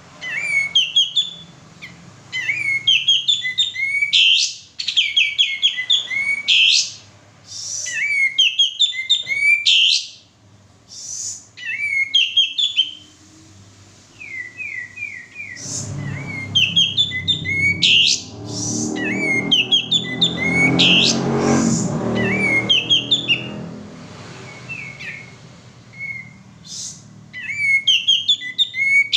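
Male sooty-headed bulbul singing: short phrases of quick, repeated high notes, again and again with brief pauses between them. A low rumble runs under the song for several seconds midway.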